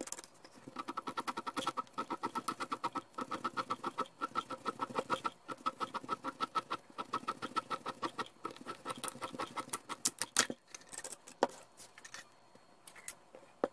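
Rubber seal from a cut-apart oil filter squeaking under the fingers: a fast, even run of short squeaks, about seven a second, followed near the end by a few sharp clicks.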